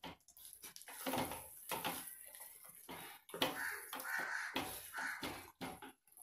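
Wooden spatula stirring and scraping thick, sticky corn flour halwa in a coated pan, in irregular strokes, as a tablespoon of ghee is worked into the paste.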